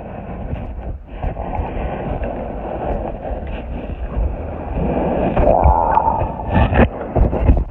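Muffled rushing and rumbling of river water heard by a phone microphone held underwater, steady and low, growing a little louder about five seconds in. A few sharp knocks come near the end.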